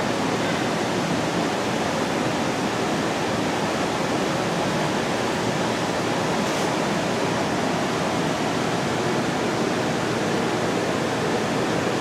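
Steady, even rushing noise with no change in level and no pitched or rhythmic sound in it.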